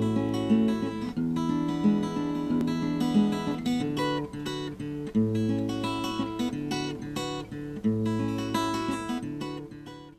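Acoustic guitar music, strummed and plucked notes over a bass line, fading out near the end.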